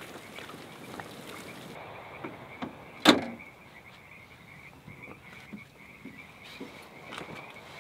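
A single sharp knock about three seconds in, ringing briefly, over a faint steady high-pitched wavering tone.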